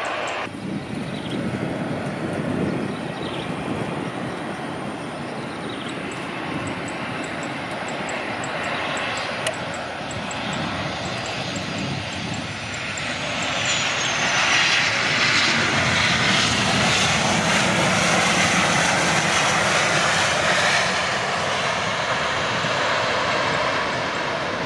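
Boeing 737-900ER's CFM56-7B turbofans during a landing, over a steadier, fainter airliner engine sound at first. About halfway through, a faint high whine falls in pitch, then the engine noise swells and stays loud for several seconds after touchdown before easing near the end.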